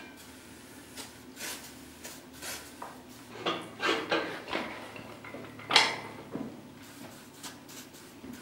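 Short bursts of WD-40 aerosol sprayed through the can's straw into the cylinder bores of a bare aluminium engine block, mixed with metal clunks and rattles as the block is turned on its engine stand. The loudest is a sharp hit about six seconds in.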